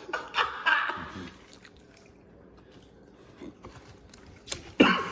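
Biting and chewing into a crispy fried Popeyes chicken sandwich, with crackly crunching of the breading in the first second or so, then quieter chewing. A louder, sharp noise comes near the end.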